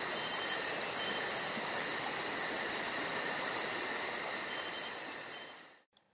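Steady night chorus of crickets and other insects, a high chirp pulsing about four times a second over a constant trill, fading out near the end.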